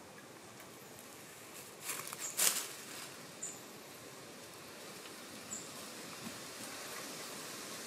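Ed Martin MK7 knife blade shaving curls down a thin wooden stick to make a feather stick: a short run of scraping strokes about two seconds in, then a few light ticks, over a faint steady hiss.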